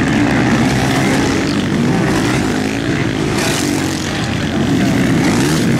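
Several motocross bike engines running hard at once, each one's pitch rising and falling as the riders open and close the throttle, the notes crossing over one another.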